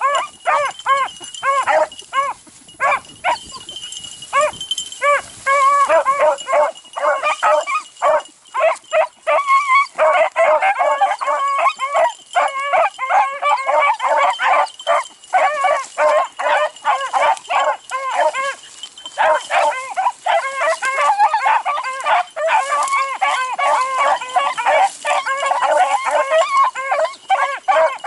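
A pack of beagles baying and barking almost without a break, several voices overlapping in quick repeated calls, with a brief thinning a few seconds in: the hounds giving tongue as they run a rabbit they have just jumped.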